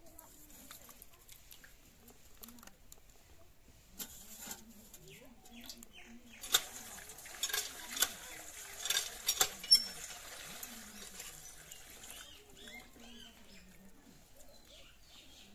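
Hands sloshing and rinsing vegetables in a steel bowl of water. Then, from about six seconds in, a hand pump is worked for several seconds: its water gushes and splashes into the steel bowl, with several sharp metallic knocks. The rushing stops about twelve seconds in.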